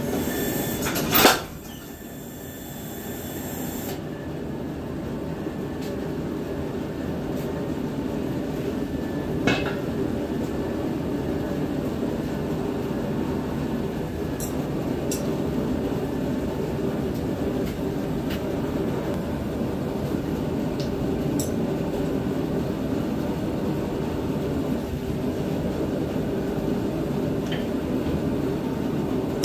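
Forge running with a steady low rush of air while the steel heats, with one sharp metal clank about a second in and a few faint clinks later.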